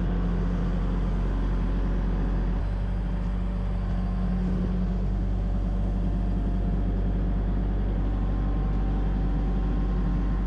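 Excavator's diesel engine running steadily at working speed, heard from the cab as the bucket digs into soil.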